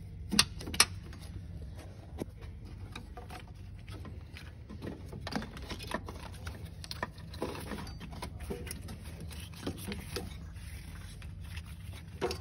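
Scattered light clicks, taps and rubbing as the slack timing belt is worked off the pulleys of a Citroen TU5JP4 1.6 petrol engine, with two sharp clicks near the start. A steady low hum runs underneath.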